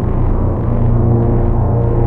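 PPG 1002 analog synthesizer playing a low, droning bass tone. Several higher held notes come in about two-thirds of a second in.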